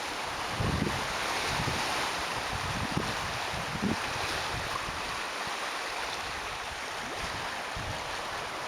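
Lake Superior waves breaking and washing over a rocky shore, a steady rush of surf. A few low thumps come in the first half.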